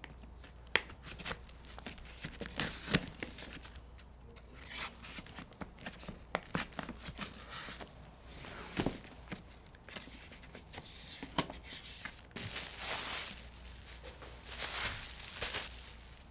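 A paper-wrapped cardboard shoe box being slit open with a knife and torn and rustled open, with scattered clicks and knocks of handling. Several longer bursts of paper and cardboard rustling and tearing come in the second half.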